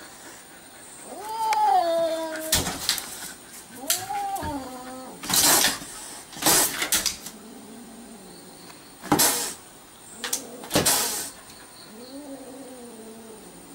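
Domestic cat yowling at a dog, three drawn-out wails that sink in pitch, broken by several short sharp hisses, which are the loudest sounds.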